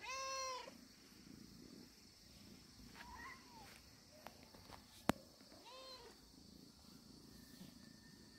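Cat meowing three times: a loud meow right at the start, a shorter, higher one about three seconds in, and another about six seconds in. A single sharp click comes just before the last meow.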